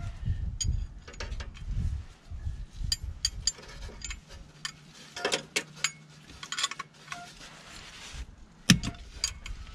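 Quarter-inch ratchet on an 8 mm Allen socket loosening a gearbox fill plug, with a 22 mm spanner on its handle for leverage. The pawl clicks and the tools tap against metal in an uneven run of clicks, with one sharp knock near the end.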